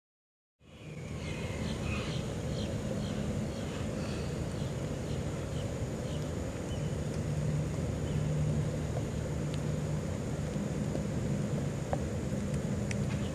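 Steady low drone of a distant engine, fading in just under a second in. Over it, a quick series of short high bird notes, about three a second, that fades away over the next several seconds.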